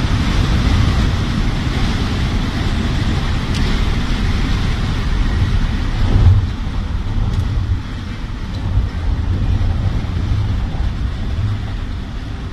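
Steady road noise inside a passenger van's cabin at highway speed: a low rumble of engine and tyres with wind hiss, and a short louder bump about halfway through.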